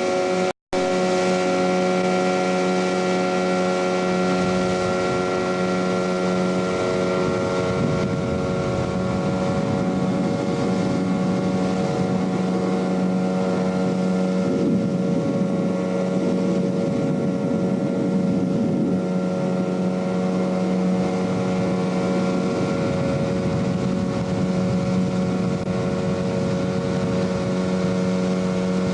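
Boat engine running at a steady pitch while under way, with wind on the microphone and rushing noise, heaviest through the middle. The sound drops out completely for a moment just after the start.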